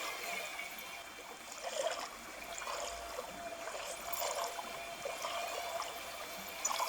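Water trickling steadily, with scattered small ticks and splashes.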